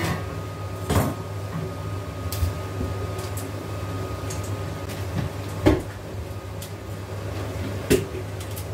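Kitchen knife cutting a head of cabbage on a cutting board: a few separate sharp knocks, the loudest about two-thirds of the way through, over a steady low hum.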